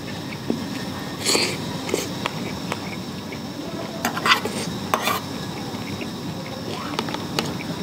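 A spoon scraping and clicking against a plastic lunch box while someone eats and chews, over a steady background hiss. A few louder scrapes come about a second in and again around four and five seconds in.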